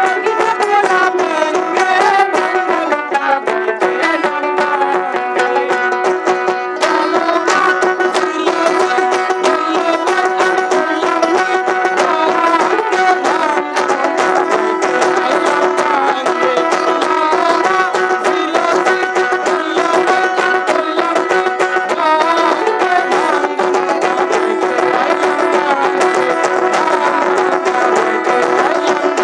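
Bengali folk (baul) song: a woman's voice singing over plucked acoustic guitar, a steady held drone note and light percussion.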